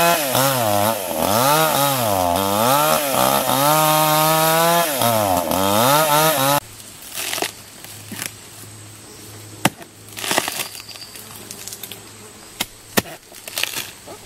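Two-stroke chainsaw cutting into a rotten palm trunk, its engine speed rising and falling as the chain bites. About six and a half seconds in it cuts off suddenly. A low hum remains, with scattered sharp knocks of a stick and machete prying into the soft wood.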